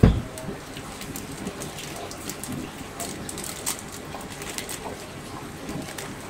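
A single dull thump at the very start, then beef and fried potatoes sizzling and crackling in oil in a cooking pot, with scattered small pops.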